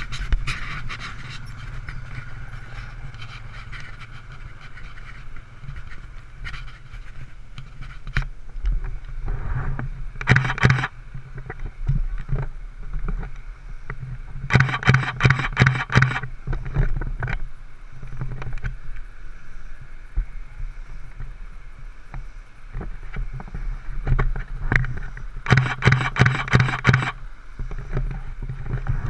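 Microphone handling noise from a phone being held and moved: rough scraping bursts lasting a second or two, three times, over a steady low background hum.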